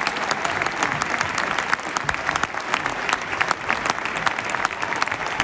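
Stadium crowd applauding steadily: dense hand-clapping from the stands, with a few faint voices mixed in.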